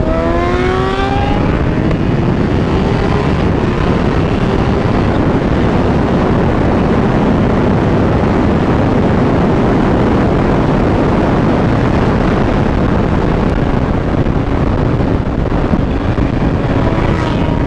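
Kawasaki Ninja H2's supercharged inline-four accelerating in second gear, its pitch rising over the first second or so. After that it is buried under steady wind noise on the helmet-mounted camera microphone at speed.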